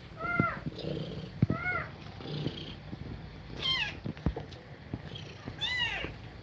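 Kittens mewing: four short, high calls that each rise and fall in pitch, over a low steady purr.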